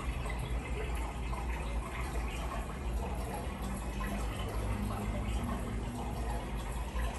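Steady running, splashing water, an even hiss without breaks.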